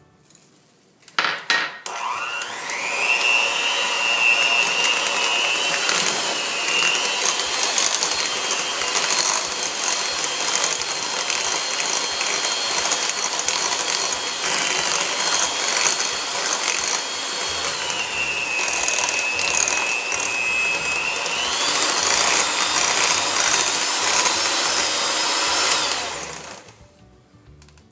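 Black & Decker electric hand mixer beating cream cheese filling in a glass bowl. A click, then the motor whines up and runs steadily, its pitch rising and falling a few times. It winds down and stops shortly before the end.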